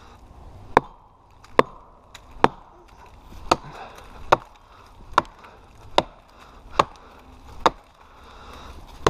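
Axe chopping into the trunk of a dead, barkless standing tree to fell it: about ten sharp strikes in a steady rhythm, a little under one a second.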